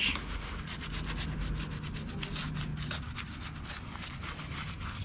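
Toothbrush scrubbing a box truck's aluminum rub rail, quick back-and-forth strokes of bristles on metal, working off rust and old letter glue.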